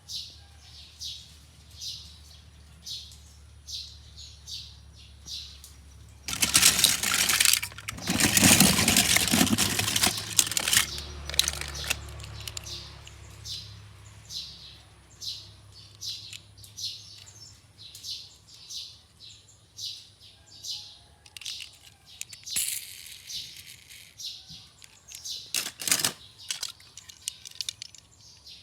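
A bird chirping over and over, short high calls about once a second. A loud rushing noise cuts in about six seconds in and lasts some five seconds, with two shorter bursts later on.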